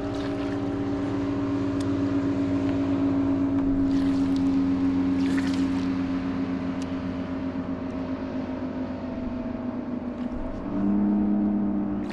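A boat's outboard motor running at a steady speed. About ten and a half seconds in, its tone drops lower and grows louder.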